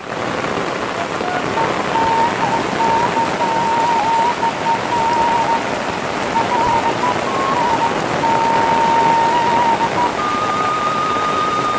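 Heavy tropical rain pouring steadily onto leaves and a paved lane, a dense even hiss of rain. A thin steady tone sounds faintly above it and steps up slightly in pitch near the end.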